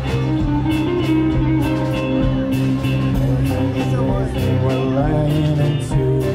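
Live rock band playing electric guitars over bass and a steady drum beat with cymbal hits.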